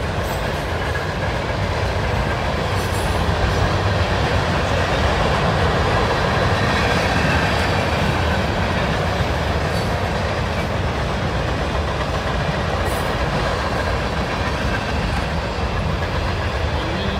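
Freight train cars rolling past at close range: a steady rumble and rattle of steel wheels on the rails, with a few brief sharp clicks.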